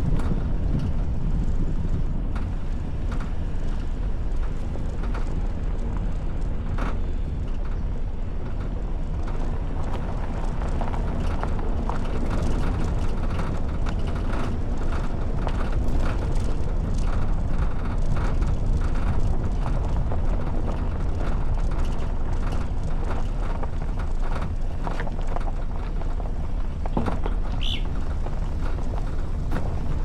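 Toyota Veloz driving over a rough dirt track, heard from a roof-mounted camera: a steady low road rumble with frequent small knocks and rattles as the car rides over the bumps.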